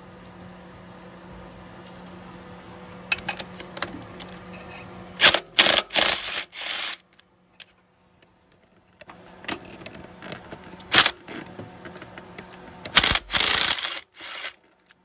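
Ratchet wrench clicking in short runs as the throttle body bolts are backed out, with a few louder bursts of metallic clatter and rattling.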